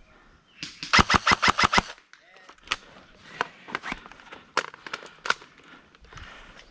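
Airsoft gun firing a fast string of about seven shots in roughly a second, followed by scattered single shots.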